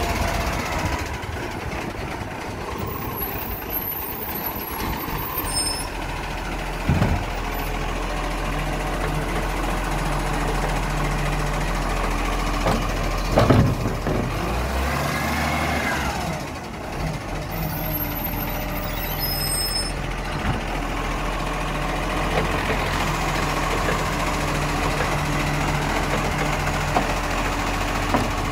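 Iveco side-loader garbage truck running, its automated hydraulic arm working to grab and lift a wheelie bin: sharp clunks about seven and thirteen seconds in, then a whine that rises and falls.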